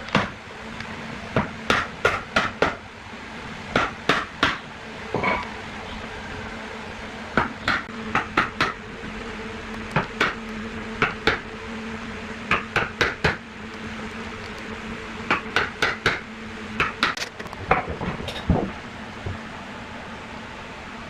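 Sharp knocks in quick groups of two to four, repeated every second or two, over a steady low hum.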